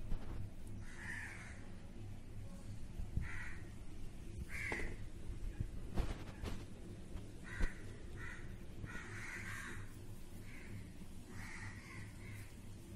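A bird calling over and over, about nine short hoarse calls a second or so apart, over a steady low hum. Two sharp clicks come about halfway through.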